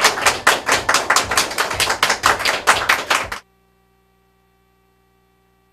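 A small group clapping quickly and steadily, about seven claps a second, cutting off suddenly about three and a half seconds in, followed by near silence.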